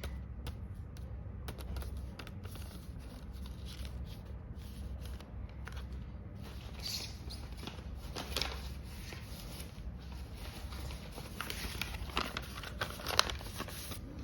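Paper crinkling and rustling, with small taps and clicks, as a homemade paper blind bag is handled and opened. It gets busier about seven seconds in and again near the end, where there is one sharp click.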